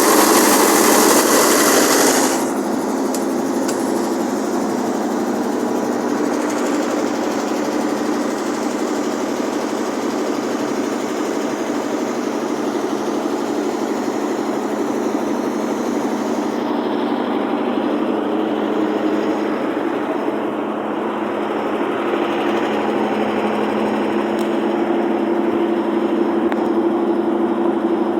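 Generator engine running steadily with a constant hum. About two seconds in, its hissy top end drops away abruptly and it becomes a few decibels quieter.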